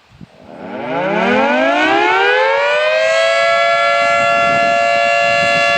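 Federal Signal 3T22 three-tone electromechanical warning siren winding up: its pitch rises over about two and a half seconds, then it holds a steady chord of several tones.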